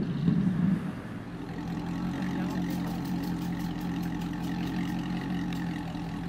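Mazzanti Evantra's V8 engine running: a rev dies away in the first second, then it settles into a steady idle.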